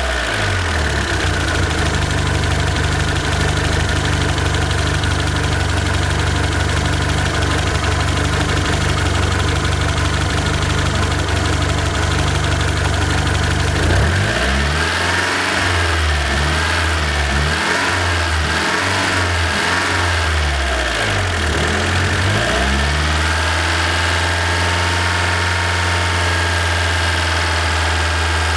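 Nissan CA18ET turbocharged 1.8-litre four-cylinder engine idling steadily, revved up and down several times about halfway through, then settling back to idle; the owner suspects its turbo is failing.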